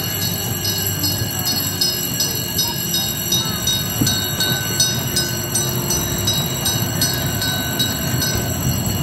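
Automatic level-crossing bells ringing rapidly and without pause while a small amusement-park train rumbles up and runs over the crossing near the end.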